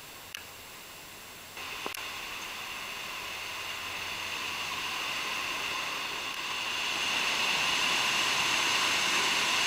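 Iguaçu Falls at the Devil's Throat: a steady rush of falling water that comes in abruptly about a second and a half in and grows louder toward the end as the falls come closer.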